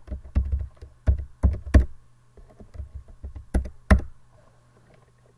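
Keystrokes on a computer keyboard: short runs of typing with a few harder key presses, the loudest just before four seconds in, then stopping. A low steady hum runs underneath.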